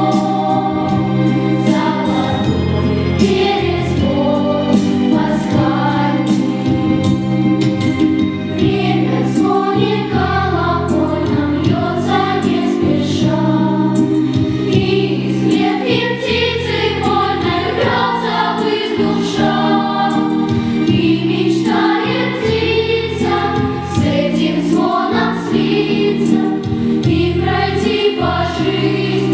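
A choir singing a sacred choral piece, several voices in harmony on sustained chords that change every second or two.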